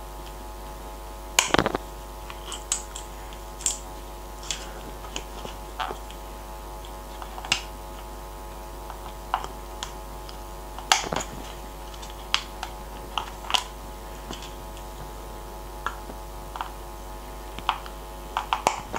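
A sharp craft knife cutting into stiff plastic blister packaging, giving irregular sharp clicks, snaps and crackles of the plastic as it is sliced and flexed, loudest about a second in and again around eleven seconds in.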